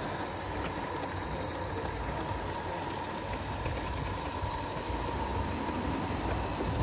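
Roundhouse Darjeeling D-Class Garratt, a live-steam narrow-gauge model locomotive, running along the track with its carriages: a steady noise of steam and wheels on rail, with a faint steady whine.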